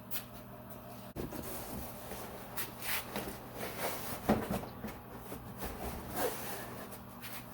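Rustling, scraping and light knocks of protective sheet material being handled and tucked around a vehicle's front end, over a steady low hum.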